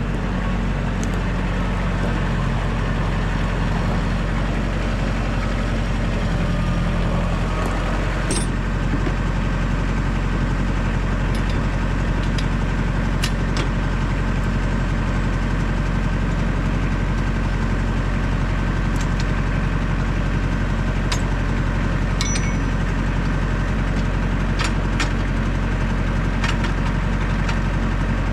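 Tractor engine running steadily, with a brief change in its sound about eight seconds in and a few faint clicks over it.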